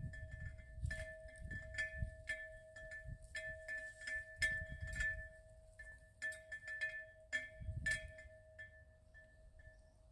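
Wind chimes ringing in gusts of wind, with wind rumbling on the microphone. The strikes come thickest where the gusts swell, about a second in, around four to five seconds, and near eight seconds, while one chime tone hangs on between them.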